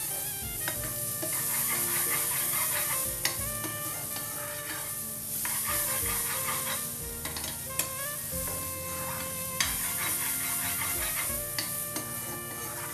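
Metal spoon stirring and scraping chopped onion and coconut frying in hot oil in a frying pan: a steady sizzle with a sharp clink of the spoon on the pan every second or two. Faint background music runs underneath.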